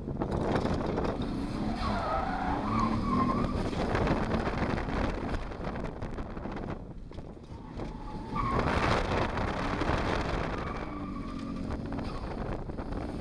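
Nissan RB25DET 2.5-litre turbocharged straight-six heard from inside the car's cabin under hard driving. The tyres squeal twice, and the engine eases off around seven seconds in, then pulls again.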